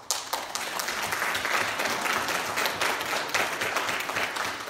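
Congregation applauding, a dense patter of many hands clapping that breaks out suddenly.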